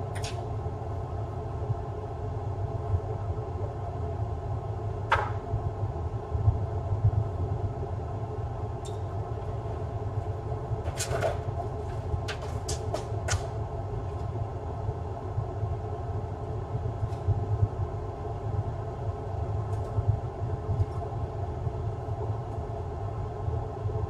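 Steady low hum of room noise, with a few light clicks and taps as a laptop's bottom cover and a screwdriver are handled on a desk. A quick run of four or five clicks comes about eleven to thirteen seconds in.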